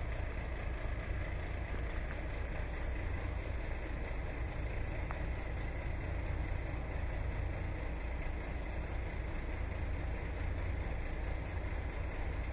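Steady, uneven low rumble of wind buffeting the microphone, with a faint steady high-pitched tone behind it.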